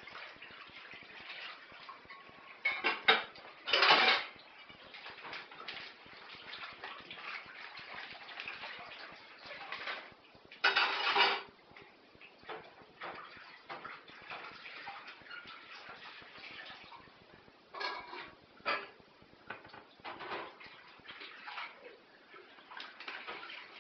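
A cat rummaging with its head in a plastic food bag, the bag crinkling and rustling in several loud bursts, with small clicks and rustles between them.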